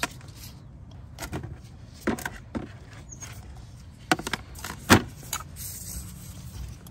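Plastic oil filter cap handled in gloved hands while its old rubber O-rings are prised off: scattered light clicks and taps, the sharpest about five seconds in, over a steady low hum.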